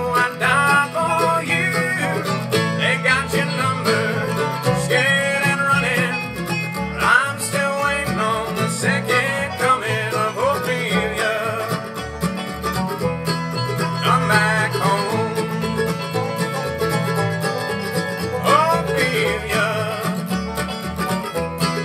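Bluegrass band playing: banjo, mandolin and acoustic guitar picking quick notes over a steady upright bass line.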